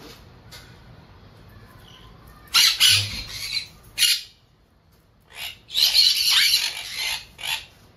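Pet parrot giving harsh squawks: a couple of short bursts, then a longer run of rasping calls in the second half.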